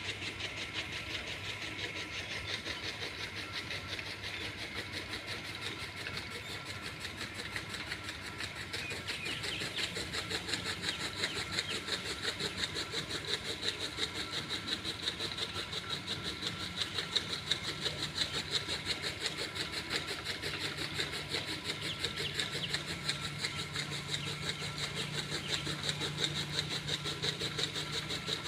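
An engine or machine running steadily with a fast, even beat, its low hum growing stronger in the second half.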